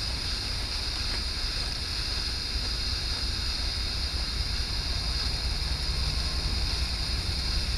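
Wind buffeting the microphone, over the steady rumble of a distant diesel train approaching, which grows slightly louder near the end.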